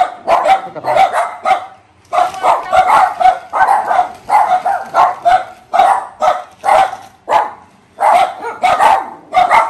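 Small white dog barking over and over in quick runs of sharp barks, pausing briefly twice.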